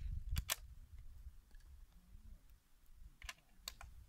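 Metallic clicks of a Sako P46 single-shot bolt-action .22 rifle being reloaded between shots. Two sharp clicks come just after the start, and three more follow about three seconds later.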